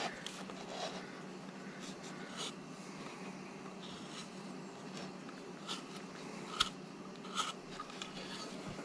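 Carving knife shaving a very hard piece of wood in light cuts: short, scratchy scrapes, roughly one or two a second, over a faint steady hum.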